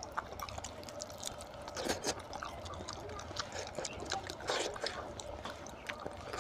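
Wet eating sounds: fingers squishing oily rice and curry and pulling meat off a curried goat's head, with many short wet clicks and chewing smacks.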